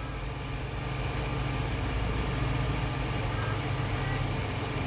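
Hyundai Galloper's LPG engine idling, a steady low hum.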